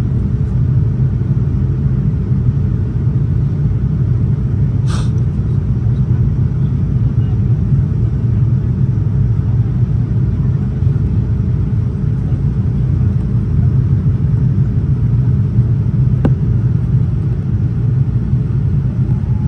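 Steady cabin noise inside a Boeing 787-9 airliner in flight: the low rumble of engines and airflow with a constant hum underneath. A short click sounds about five seconds in, and a fainter one near sixteen seconds.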